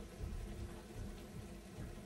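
Food cooking in an Instant Pot on its sauté setting: a faint, steady sizzle and bubble with an uneven low rumble underneath.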